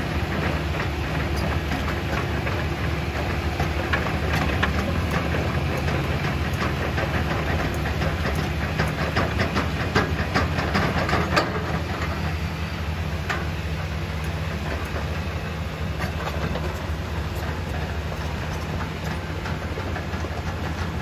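Hitachi crawler excavator's diesel engine running steadily as the machine travels on its steel tracks, the track links clanking and clicking, most densely about halfway through.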